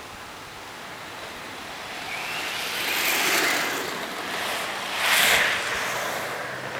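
Plastic banana-board skateboard's wheels rolling on asphalt: a rumble that grows as the board approaches and passes close by, louder again about five seconds in as it goes over a bump in the road, then fading.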